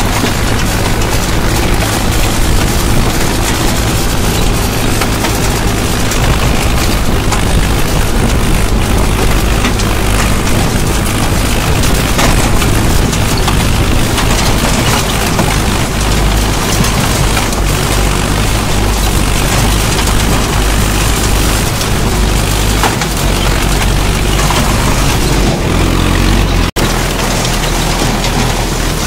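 Mahindra Arjun 555 DI tractor's four-cylinder diesel engine running steadily under load while a Shaktiman 6-foot rotavator's blades churn through dry soil. The sound cuts out for an instant near the end, and the low engine hum shifts after it.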